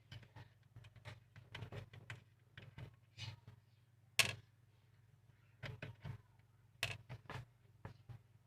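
Light, irregular clicks and taps from handling the small parts of a USB receiver and tools during disassembly, with a sharper click about four seconds in and another near seven seconds, over a low steady hum.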